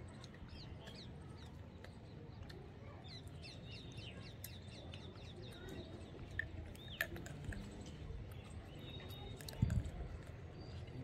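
Small birds chirping, a run of short, quick high chirps that thins out after the middle, over a steady low rumble. A single dull thump comes near the end.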